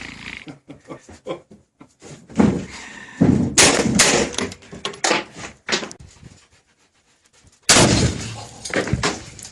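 Gunfire and the blasts of 1 lb tannerite charges (binary exploding targets) detonating: a run of sharp bangs, the loudest about three and a half seconds in and another big one near eight seconds, each trailing off into ringing.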